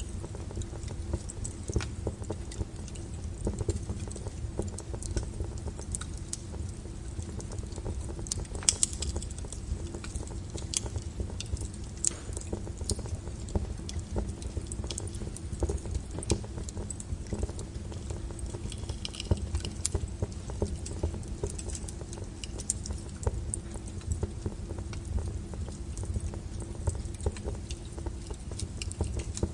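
Wood fire burning: a steady low rumble of flames with frequent sharp crackles and pops scattered irregularly throughout.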